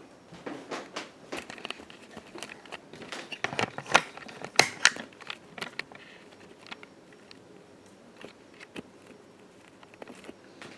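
Irregular clicks, crackles and rustling of handling, thickest and loudest in the first half, then thinning to a few faint clicks.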